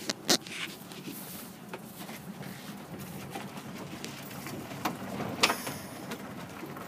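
Low, steady rumble heard inside the cab of a 1968 GMC 4903 coach as it moves along, with scattered knocks and rattles. There is a sharp knock just after the start, and the loudest one comes a little past the middle.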